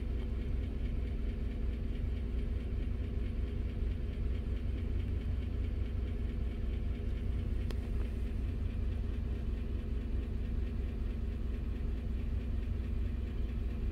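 A GMC Sierra's 5.3-litre direct-injected V8 idling steadily while a scan tool runs the injector balance test, pulsing one injector at a time. The engine carries a P219B fuel-imbalance fault that the mechanic puts down to failing injectors and carbon deposits on the intake valves.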